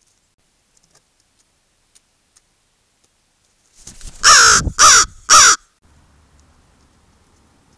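Crow cawing three times in quick succession, loud and close to the microphone, the first call the longest, about four seconds in.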